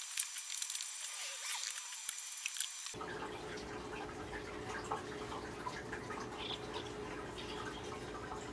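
Quiet room tone: a faint steady hum with scattered light clicks and ticks, and no tool running.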